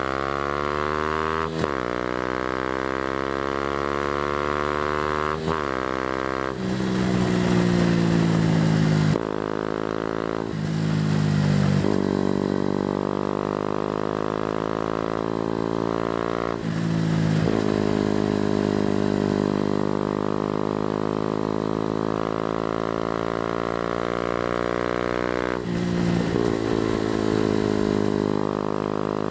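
Yamaha MT125's single-cylinder four-stroke engine through an Akrapovic full exhaust system, under way on the road. Its pitch climbs and drops back sharply several times as the rider works up through the gears, then it settles into steady cruising, with one more shift near the end.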